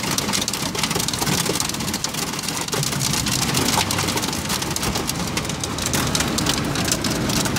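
Heavy rain falling, a steady rush of noise with a dense ticking of drops striking the window glass.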